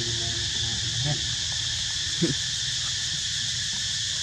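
Steady high drone of insects, with short pitched calls in the first half-second and a brief louder low sound a little after two seconds in.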